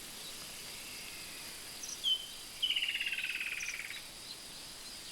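Woodland kingfisher calling: one sharp note, then a fast trill that falls in pitch and lasts about a second and a half. Behind it is a steady hiss of insects with faint high chirps.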